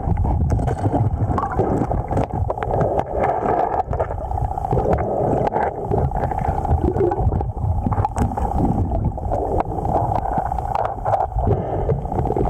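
Muffled rush of flowing river water as heard by a camera underwater, steady throughout, with many small clicks and knocks.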